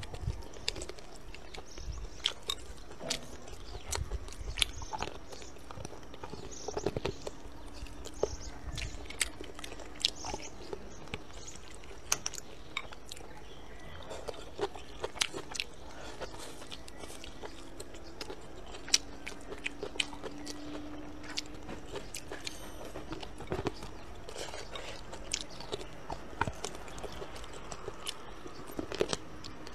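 Close-miked chewing and biting of a mouthful of rice, pork and green chili peppers, with many short, sharp clicks scattered throughout.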